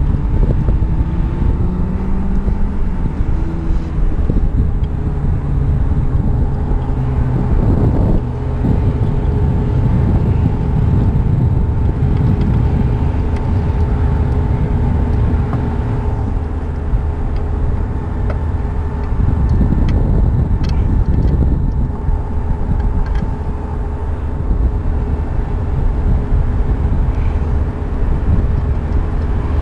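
Wind buffeting the camera microphone as a continuous low rumble, with a faint steady machinery hum underneath and a few light taps from hands handling the plastic radar housing about two-thirds of the way in.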